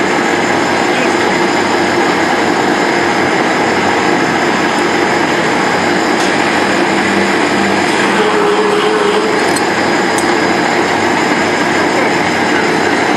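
IMC-25 high-speed hydraulic thread rolling machine running, rolling threads onto a steel bar passing between its dies: a loud, steady mechanical noise with a few faint clicks.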